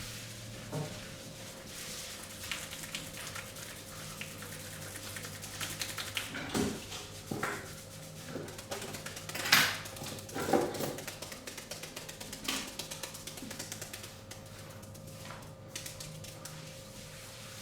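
Barber's hand massage: hands rubbing over skin and hair, with scattered sharp smacks, the loudest about halfway through.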